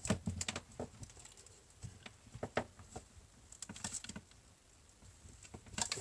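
Scattered light clicks and taps of metal on metal as hand cutters are set on and worked against a thick metal part of a dismantled door lock.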